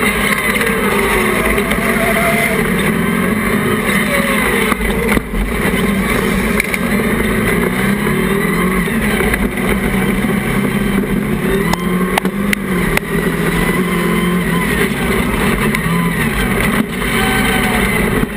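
Class 1 off-road race buggy engines running hard, heard onboard, the revs rising and falling through the corners.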